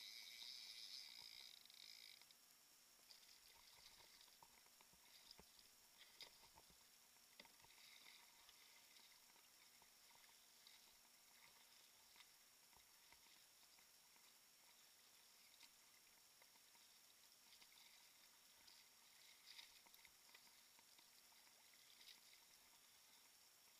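Near silence: faint scattered ticks and light patters of water lapping against a plastic kayak hull, over a steady faint hum. A faint high hiss fades out about two seconds in.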